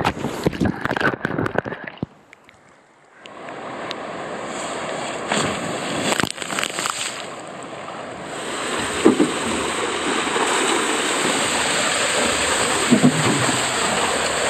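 Rider and camera splashing into the pool out of an enclosed speed water slide, then a brief muffled hush underwater about two seconds in. After that, steady rushing and splashing water with a few knocks.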